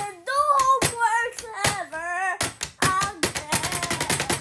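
A child's voice singing short gliding notes without clear words, over sharp hand taps and claps. A fast run of taps comes about three and a half seconds in.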